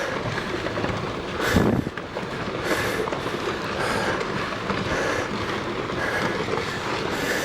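Rockfall on a volcano slope: loose rocks tumbling and clattering downhill, a continuous rumble full of scattered knocks, with one louder impact about a second and a half in.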